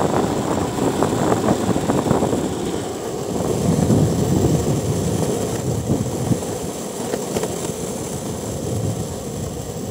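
Longboard wheels rolling fast on asphalt: a steady, rushing rumble with a few small clicks from the road surface, easing off gradually toward the end as the board slows.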